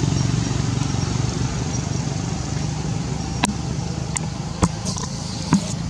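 A steady low rumble, fading slightly, with four sharp clicks in the second half.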